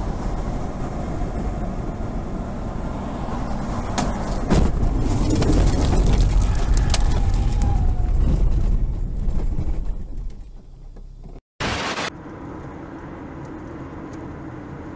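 Car cabin road and engine noise heard through a dashcam. From about four seconds it swells into a loud low rumble with several sharp knocks as the car runs over rough dirt ground off the road, then fades around ten seconds. After a brief cut, steady, quieter motorway road noise from another car follows.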